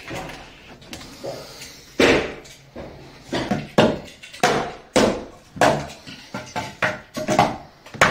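Hatchet chopping old wooden boards into kindling: a run of sharp wooden chops, about two a second, starting about two seconds in.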